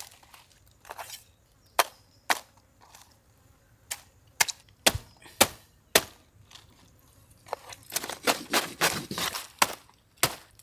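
Machete chopping through the base of a sailfish's dorsal fin: a run of sharp single chops, a quick flurry of hacking strokes a little past the middle, then one more chop near the end.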